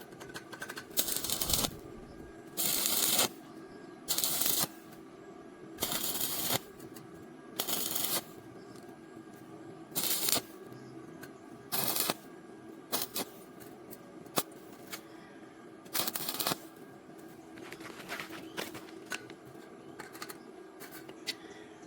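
Short tack welds on square steel tube: about ten brief crackling bursts of welding arc, each roughly half a second long and one to two seconds apart, with a few sharp clicks between them.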